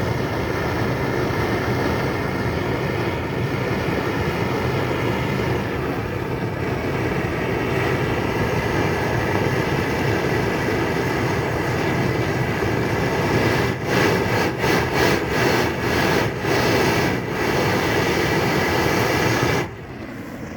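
Loud, steady rushing roar of a heating tool playing on a padlock to melt hardened super glue in it. The sound wavers with repeated dips for a few seconds past the middle, then cuts off abruptly near the end as the heat is shut off.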